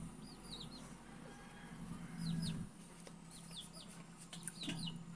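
Faint, short high chirps falling in pitch, in quick pairs and threes every second or so, from birds. A brief low hum comes a little after two seconds in.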